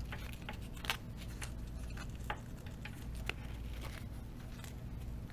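A thin USB cable being coiled up by hand: light irregular clicks and rustles as the cable and its plastic plug tap and rub, over a faint low hum.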